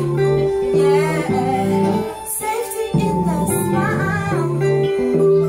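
Electric guitar and acoustic guitar playing a slow song together, with held low notes changing about every half second and a wavering melody line above.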